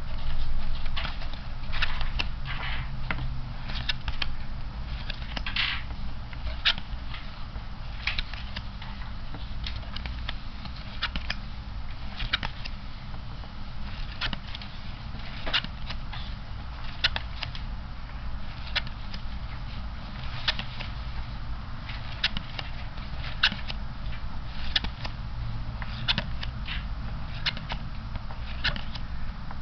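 Playing cards being pulled one at a time off the front of a handheld deck, each card giving a short click, irregularly about once or twice a second, over a low steady hum.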